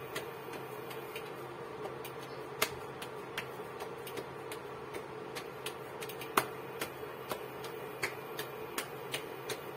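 Hands patting a ball of soft ragi (finger millet) dough flat between the palms to shape a roti: light, irregular pats about twice a second, a few of them louder. A steady hum runs underneath.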